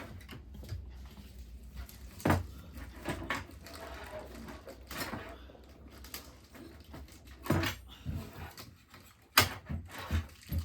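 A few separate knocks and bumps of objects being handled, the sharpest one near the end, over a low steady hum.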